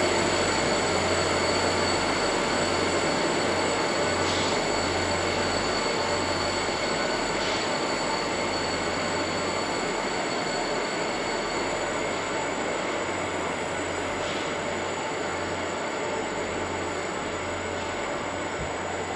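Loram C21 rail grinder train running on the line, a steady broad rushing noise with a low hum and a thin high whine, slowly fading as the train moves away.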